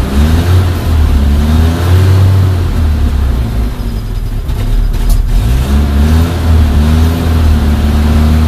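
Suzuki Samurai's 1.3-litre four-cylinder engine running on a freshly fitted Toyota Corolla carburetor, heard from inside the cab. The revs rise and fall several times, with the tank nearly out of gas.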